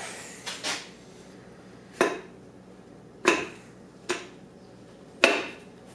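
Sharp metallic knocks, four of them roughly a second apart with a short ring after each, as a piston and connecting rod are worked out of a cylinder bore in a 5.3 LS V8 block. The piston is hanging up and not sliding free.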